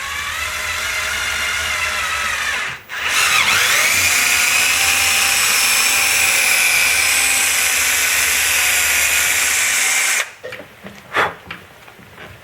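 Power drill boring a quarter-inch hole through the back part of a Kia Optima door handle. It runs for under three seconds, stops briefly, spins back up with a rising whine and runs steadily for about seven seconds before stopping, followed by a few light knocks.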